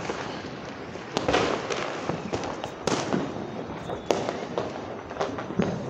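Firecrackers and fireworks going off all around: several sharp bangs about a second apart over a continuous din of distant bursts and crackling.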